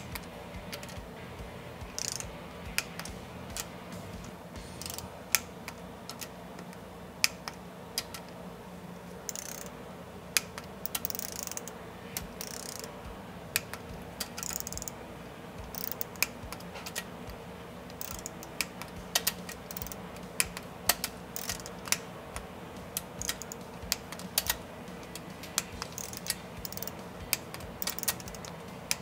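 Hand torque wrench ratcheting and clicking on the cam cap bolts of a Kawasaki 12F jet ski engine, torquing them to 106 inch-pounds. Sharp irregular clicks and short ratchet rasps come throughout over a low steady hum.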